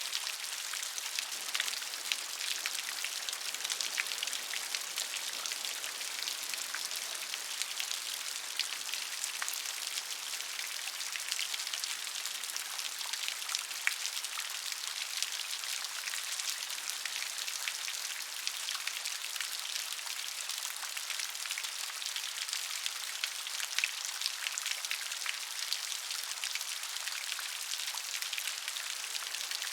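Steady rain, with many small drops pattering and ticking on a surface.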